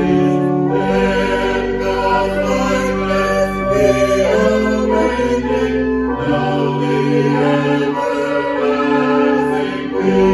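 Choral music: voices singing long held chords over an accompaniment, changing chord every second or two.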